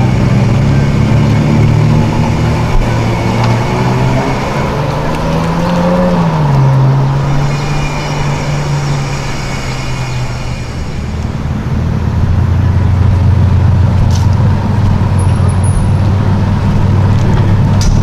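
Ferrari GTC4Lusso engine pulling away from a standstill, with a short rev that climbs and falls back about four to six seconds in. It then runs at low speed with a steady low note.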